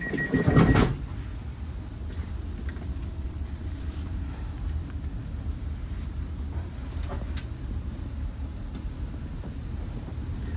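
Inside a Caledonian Sleeper train carriage: a pulsing high beep cuts off under a loud thump in the first second. Then a steady low rumble continues, with a few faint clicks.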